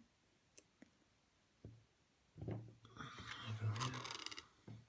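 A few light ticks of small lock parts being handled on a bench, then about two seconds of scraping and rustling.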